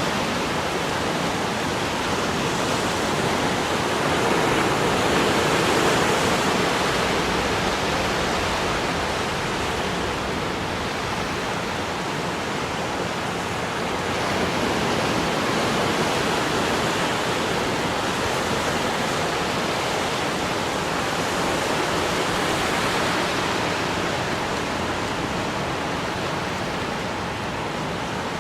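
Sea waves breaking and washing onto the beach: a continuous rush of surf that swells a few times as larger waves break.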